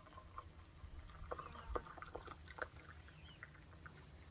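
Hot tea pouring in a thin stream from a steel vacuum flask into a ceramic mug, faint, with a few light clicks. Crickets trill steadily in the background.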